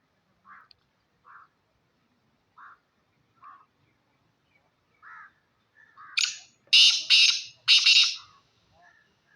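Black francolin giving short soft notes about once a second, then, about six seconds in, its loud harsh call of four notes in quick succession.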